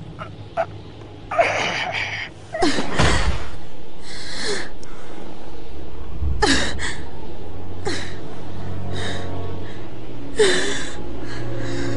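A young woman gasping for breath again and again, winded and dazed after being knocked down. There is a heavy thump about three seconds in, and a low steady drone sounds underneath from then on.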